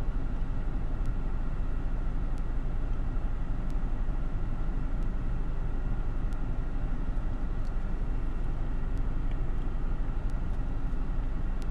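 Steady low rumble and hiss inside a car's cabin, with a few faint clicks.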